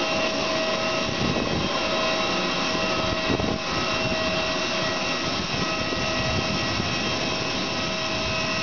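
Steady whine and rush of a parked jet airliner's turbine, several high tones held over a broad roar.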